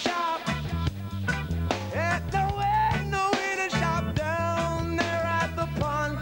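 Music: a song with a stepping bass line and a steady drum beat under a melody.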